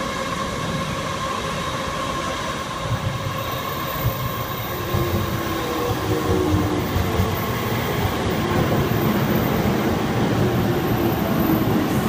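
Yamanote Line electric commuter train pulling into the platform: a steady rumble of wheels on rails that grows louder about five seconds in as the cars run alongside, with a low steady whine in the middle stretch.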